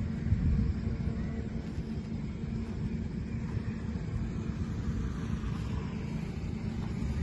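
Wind buffeting the microphone: a steady, fluttering low rumble.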